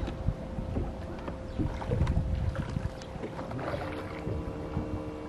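Electric trolling motor running with a steady hum, a second, lower tone joining about four seconds in, under wind rumbling on the microphone.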